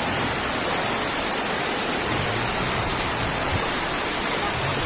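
Floodwater rushing across a road, a steady even wash of water noise.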